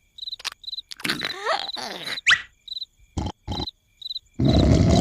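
Cartoon night ambience of crickets chirping in short repeated trills, broken by quick cartoon sound effects: rising sliding whistles and a few sharp knocks. About four seconds in, loud rough snoring starts and drowns the crickets.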